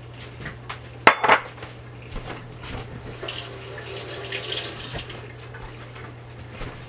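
A sharp knock about a second in, like a utensil against the pot, then a kitchen tap running for a couple of seconds, all under a steady low hum.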